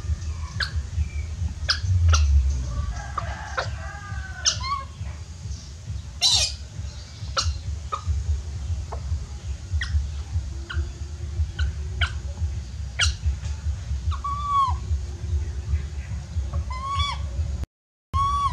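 Young monkey calling for its mother while it eats: many short, sharp, high chirps, with a few longer arched squeals near the end, over a steady low rumble. The sound cuts out briefly just before the end.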